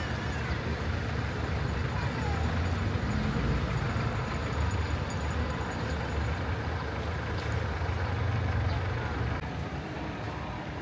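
Road traffic passing, a steady low rumble of vehicles that swells twice and eases a little near the end.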